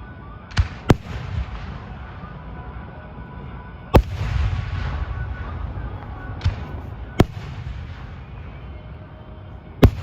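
Aerial fireworks going off: about six sharp bangs at irregular intervals, the loudest about four seconds in, each trailed by a low rumbling echo.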